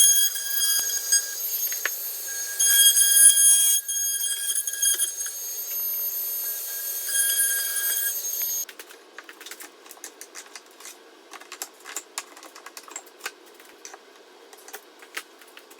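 A power tool running with a high-pitched whine that dips briefly a few times, then shuts off about eight and a half seconds in. Light scattered clicks and taps follow.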